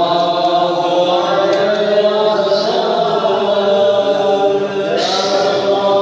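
Men's voices chanting a slow, melodic Islamic devotional chant in long held notes, with a new phrase starting about five seconds in.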